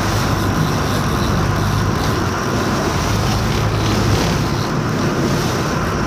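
A motorboat's engine droning steadily under way, under an even rushing wash of wind and water.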